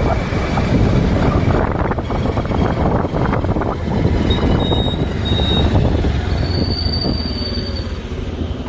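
Motorized two-wheeler riding along a road: steady engine and tyre rumble mixed with wind buffeting the microphone. A thin high tone comes and goes twice in the second half.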